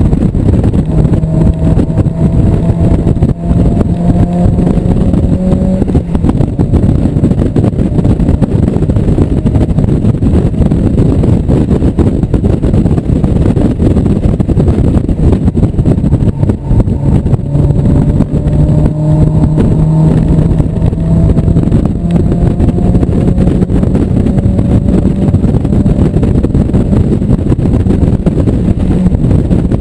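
1997 Mazda Miata's 1.8-litre four-cylinder engine running hard at track speed, heard from inside the open-top cockpit through a dense rush of wind and road noise. Its pitch climbs twice as the car accelerates.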